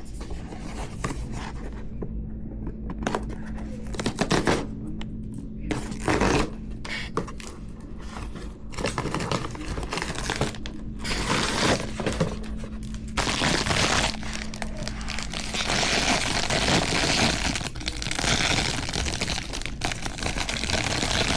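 Hands opening a toy's blind-box packaging: scattered scrapes and clicks of cardboard being handled, then, about halfway through, continuous crinkling and tearing of the wrapping.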